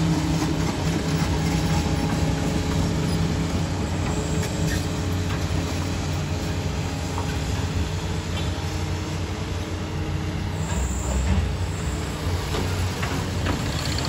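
Doosan excavator's diesel engine running, with a steady engine tone early on that turns to a rougher mechanical noise, and a few sharp metallic knocks in the second half.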